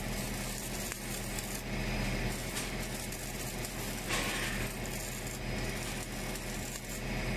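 Steady machine hum with a hiss over it, as in a metalworking shop, with a brief louder hiss about four seconds in and again near the end.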